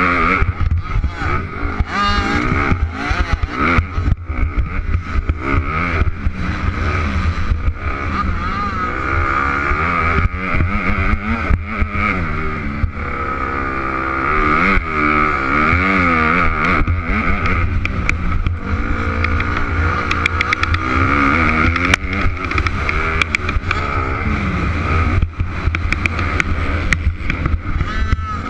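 Motocross dirt bike engine heard from a helmet-mounted camera, revving up and falling back again and again as the rider works through the gears, with wind buffeting and knocks from the rough track on the mic.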